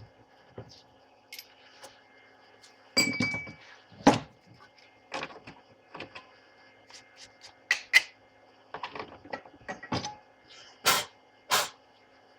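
Metal tools and lathe parts being handled while a knurling tool is set up on a small TV-16 lathe: scattered knocks, clicks and clanks. One clink about three seconds in rings briefly, and two louder knocks come near the end.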